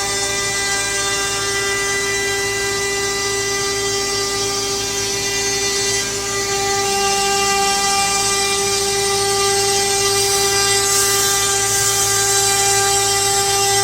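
CNC wood router running with a steady whine made of several tones. It shifts about six seconds in, when a lower tone joins and the sound grows slightly louder.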